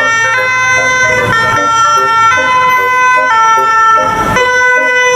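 Electronic two-tone siren of a toy ambulance, alternating between a high and a low note about once a second.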